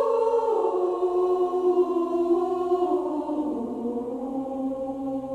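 Layered voices chanting long held tones in a slow, meditative choir-like drone. The pitches shift slowly, and a lower sustained tone comes in about three seconds in.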